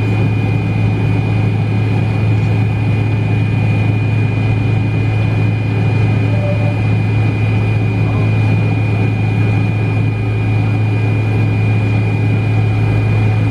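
Cabin noise of a McDonnell Douglas MD-88 on the ground, its tail-mounted Pratt & Whitney JT8D turbofans running at idle: a steady low hum with a thin, constant high whine over an even rush of air.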